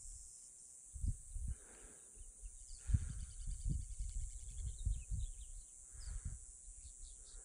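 Outdoor pond-side ambience: a steady high hiss with a few faint bird chirps. Irregular low thumps on the microphone are the loudest sound, strongest about three seconds in.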